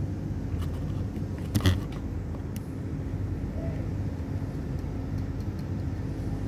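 Steady low mechanical hum like a running engine, with one sharp click about a second and a half in.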